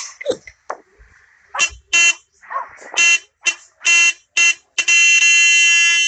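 Car horn sounding in a series of short honks, then held in one long blast near the end, pressed by a dog sitting behind the steering wheel.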